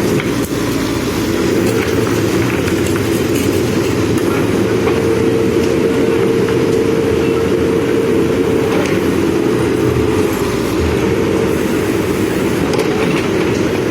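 Manitou backhoe loader's diesel engine running steadily under working load, with a whine that stands out from about four to nine seconds in.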